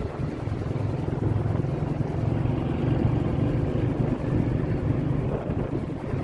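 Steady low rumble of a vehicle in motion, with wind buffeting the microphone.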